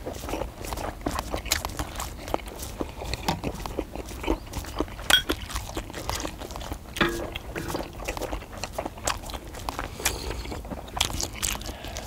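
Several people eating skewered fish cakes and broth: irregular chewing, biting and mouth smacks, over a steady low rumble.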